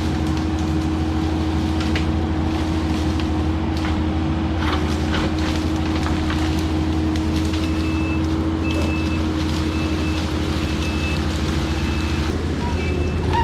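Diesel engine of heavy clearing equipment running steadily, with scattered short cracks. From a little past halfway, a backup alarm beeps at an even pace, about one beep a second, as the machine reverses.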